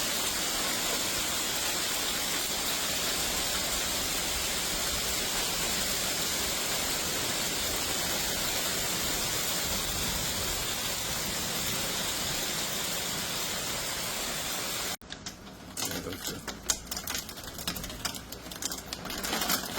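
Heavy downpour as a steady, even hiss. About 15 seconds in it cuts to a closer, uneven patter of rapid sharp taps of rain striking hard surfaces.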